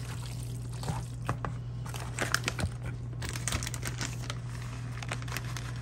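A utensil stirring and scraping a thick, wet ground beef, vegetable and cheese mixture in a plastic bowl: irregular squelches and clicks, busiest in the first few seconds, over a steady low hum.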